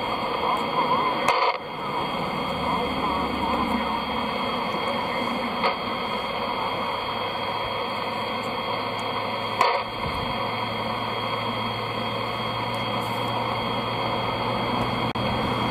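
Steady radio static hiss from a receiver, broken by three sharp crackles about a second and a half, five and a half and nine and a half seconds in: lightning strikes picked up on the radio. A low hum joins about ten seconds in.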